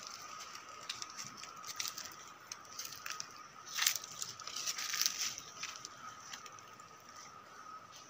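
Footsteps and dry brush crackling and rustling in an irregular patter as someone walks through scrub, with the loudest rustle about four seconds in. A thin steady tone sounds underneath.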